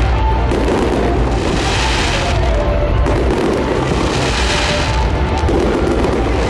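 Aerial fireworks shells bursting in quick succession, their booms running together into a continuous rumble, with waves of crackling every second or two.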